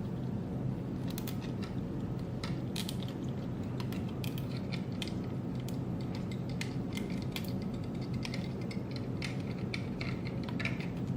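Small plastic zip tie being threaded through the frame and pulled, with irregular sharp plastic clicks and taps from handling it, over a steady low hum.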